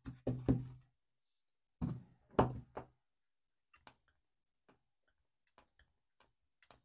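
Knocks and thumps of a hollow plastic fuel tank being handled on a workbench, in two clusters in the first three seconds, followed by a run of faint light ticks, about two a second.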